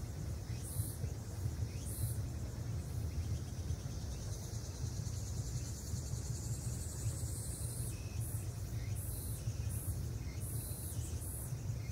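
Insects chirping outdoors: short, very high-pitched buzzy pulses repeating about once a second, with a longer drawn-out buzz in the middle, over a steady low rumble.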